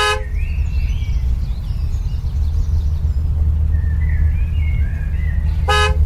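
Steady low rumble heard inside a car, with faint bird chirps outside. There is a short beep at the start and another near the end.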